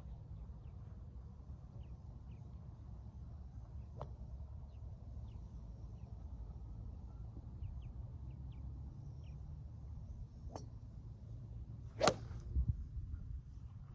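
A 2021 Titleist T200 iron striking a golf ball once near the end, a sharp crack over a steady low rumble. Faint short high chirps are scattered through it.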